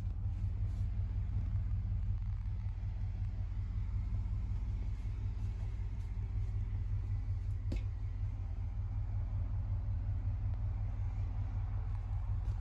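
Pickup truck engine idling: a steady low rumble, with one brief click about eight seconds in.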